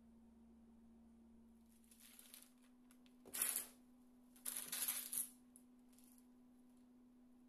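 Parchment paper crinkling and rustling in two short bursts, after a fainter one, as hands lift and fold the edges of a cheese-filled dough flatbread. A faint steady hum runs underneath.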